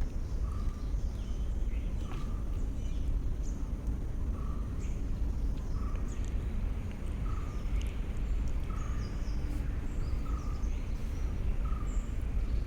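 A bird repeating a short chirp roughly once a second, with fainter high chirps, over a steady low background rumble.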